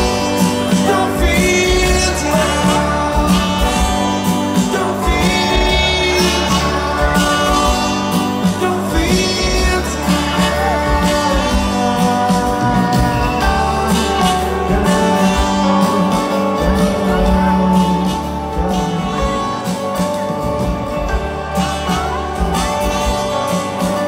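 Live rock band playing through a festival PA, heard from within the crowd: sung vocals over acoustic guitar and the full band.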